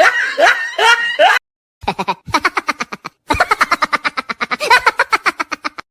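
High-pitched laughter in quick, rhythmic pulses, broken by two abrupt cuts into separate snippets.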